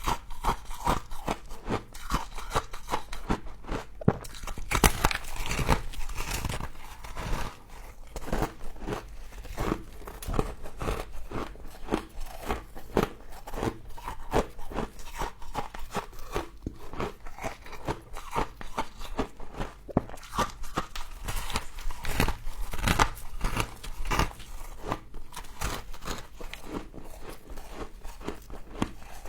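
Close-up crunching and chewing of frost: rapid, crisp crunches go on throughout as the frost is bitten and chewed.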